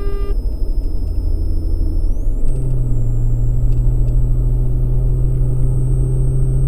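Road and engine noise inside a moving car's cabin at highway speed: a steady low rumble, with a droning engine hum that steps up in pitch about two seconds in. A short electronic beep sounds at the very start.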